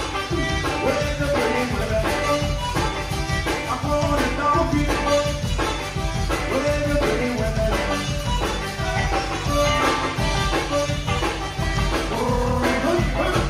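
Zydeco band playing live, with electric guitar and drum kit keeping a steady dance beat.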